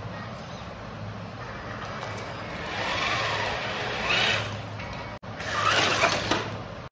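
Radio-controlled scale off-road car on a climbing obstacle: its motor runs under a steady low hum while the tyres scrabble. The noise rises in two louder surges, one about three to four seconds in and one near the end, with a brief break just after five seconds.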